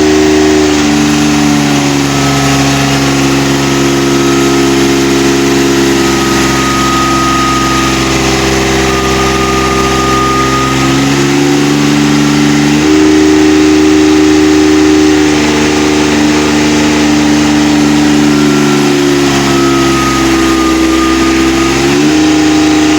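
Kubota 15 kVA high-speed diesel generator running loud and steady at about 3000 rpm under a load test. Its pitch dips briefly and recovers about halfway through and again near the end, as the engine takes up changes in load.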